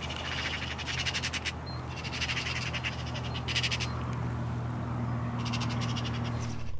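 Eurasian magpies chattering: three bursts of a fast, dry rattle.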